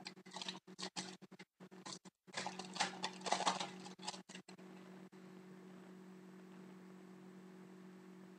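Foil wrapper of a hockey card pack torn open and crinkled by hand for about four and a half seconds, loudest in the middle. After that only a faint steady low hum remains.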